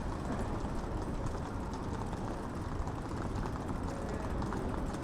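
Steady low rumble of city street noise, with faint scattered clicks.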